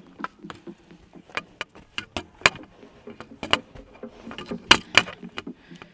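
Footsteps and trekking-pole taps on a steep, rocky dirt trail: irregular sharp clicks and scuffs, about three a second.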